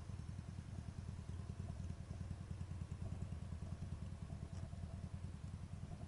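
Motorcycle engine idling close by: a steady low, pulsing rumble.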